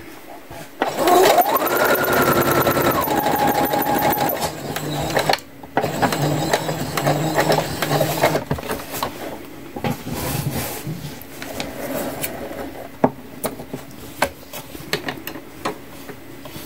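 Computerized electric sewing machine stitching a seam through fabric in bursts: the first run speeds up with a rising whine, holds, then slows and stops, and two shorter runs follow. After about eleven seconds the machine falls still, leaving only light clicks of handling.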